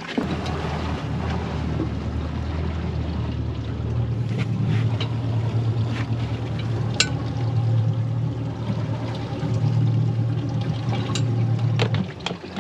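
Electric spot-lock trolling motor humming steadily as it holds the boat on the spot. Its pitch steps up about four seconds in and it cuts off suddenly near the end, with a few light knocks on the boat over it.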